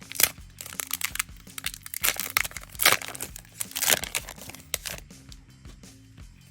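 Foil trading-card booster pack crinkling and crackling as it is handled and torn open, with a few sharper cracks in the first four seconds. Quiet background music runs underneath.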